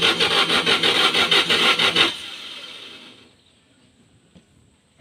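Volkswagen Beetle's air-cooled flat-four being turned over by the starter, a rapid rasping beat of about six or seven strokes a second. It does not catch: about two seconds in the cranking stops and the sound dies away. The car is failing to start.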